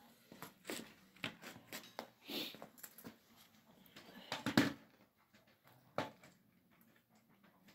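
Work boots shuffling on a concrete floor with light knocks and scrapes of a steel strip being bent into a hoop, the loudest scrape about four and a half seconds in and a sharp click near six seconds.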